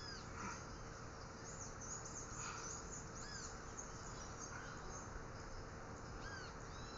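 Birds chirping in the background: short arched chirps recurring about once a second over a steady hiss.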